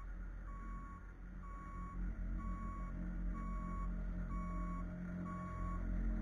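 Construction machine's reverse backup alarm beeping steadily about once a second, each beep about half a second long, over the low rumble of its engine running.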